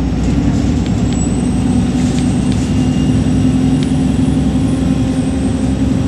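Alexander Dennis Enviro300 single-deck bus heard from inside the saloon, running steadily at road speed with a continuous engine hum and a thin, high "hoover" whine that rises about a second in and holds.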